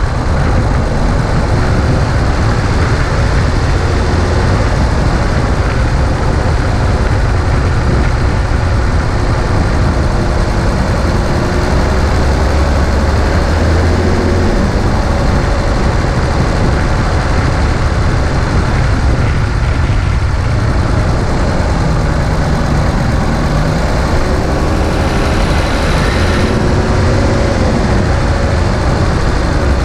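2017 Infiniti Q50 with its 3.0-litre twin-turbo VR30 V6, on the move: a steady low rumble of road and engine noise, with faint engine tones that rise and fall.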